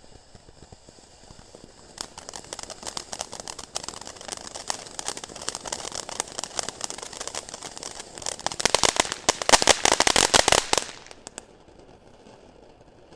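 Ground fountain firework crackling: a dense, rapid crackle starts about two seconds in, grows loudest and thickest near the end, then cuts off suddenly.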